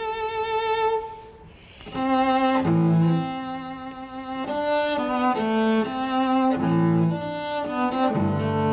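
Bowed string instruments playing: a held note, a brief drop in level about a second and a half in, then a passage of several string parts changing notes, with deeper notes joining near the end.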